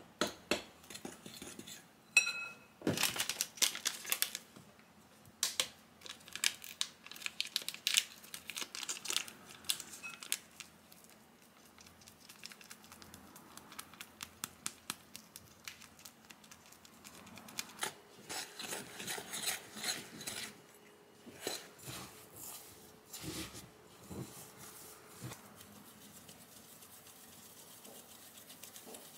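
Metal spoon scraping and clinking against a glass mixing bowl while stirring a stiff rice-flour and yogurt dough, in irregular runs of sharp taps and scrapes that thin out and grow quieter toward the end.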